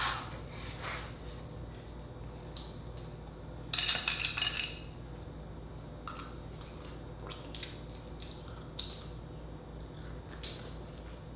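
Quiet eating sounds: clams in their shells picked by hand from a glass bowl of garlic-butter sauce, with the shells clicking and soft mouth sounds as one is eaten. A short cluster of clatter comes about four seconds in.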